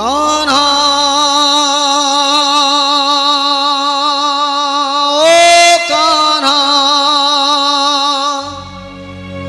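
Opening melody of a Krishna bhajan: one long held melodic note with a steady vibrato, stepping up to a higher, louder note about five seconds in and back down. A lower accompaniment comes in near the end.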